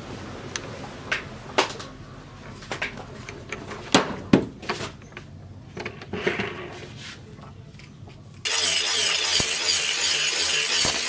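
Scattered metallic clicks and knocks as an abrasive disc and its flange nut are fitted onto an angle grinder and tightened by hand. About eight and a half seconds in, the sound cuts suddenly to louder, steady background music.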